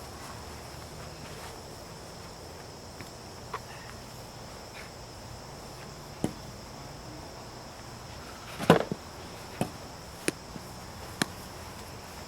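Steady high-pitched insect chorus, broken by a few sharp knocks; the loudest knock comes about nine seconds in, and smaller ones follow every second or so.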